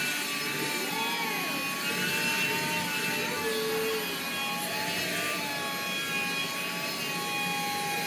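Black & Decker cordless handheld vacuum running, a steady motor whine that wavers in pitch now and then, its nozzle rubbing over the carpet.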